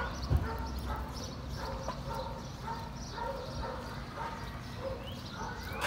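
A dog barking repeatedly, short barks about three a second, with a single low thump just after the start.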